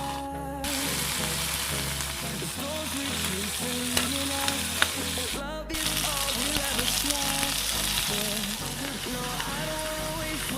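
Crab masala frying in hot oil in a pan, with a steady sizzle that drops out briefly twice, near the start and about halfway through. Background music plays underneath.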